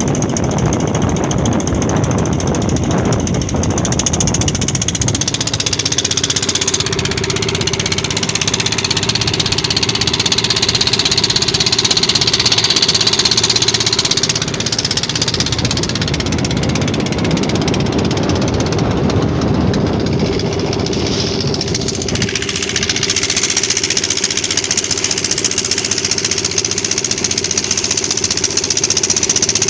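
An engine running steadily and close, with a continuous low hum.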